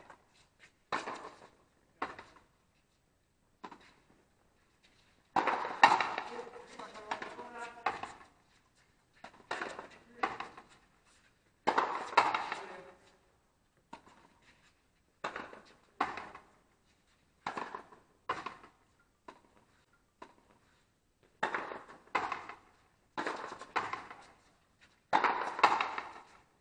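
Players' voices calling out on a frontenis court, broken by short sharp knocks that come every second or two with silent gaps between them.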